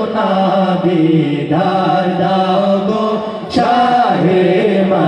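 A group of men singing a Bangla Islamic gojol together into microphones through a PA, holding long drawn-out notes, with a brief break about three and a half seconds in.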